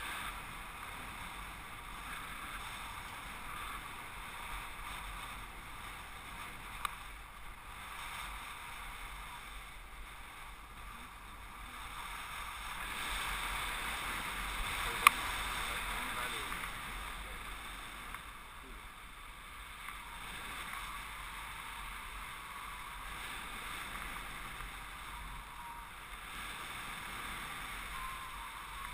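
Steady rush of air past a paraglider pilot in flight, wind noise on the microphone, swelling a little around the middle. A sharp click is heard about halfway through, and a fainter one earlier.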